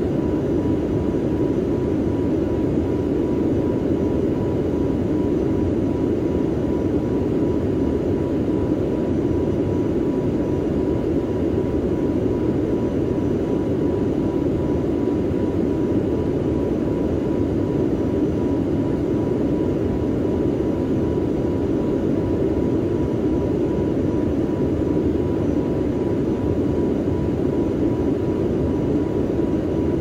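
Steady jet airliner cabin noise in flight: an unbroken low drone, with a faint constant tone above it.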